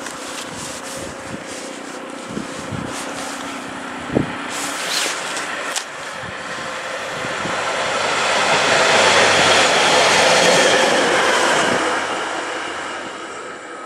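Train passing through a station, its rumble swelling to a peak about ten seconds in and then fading away.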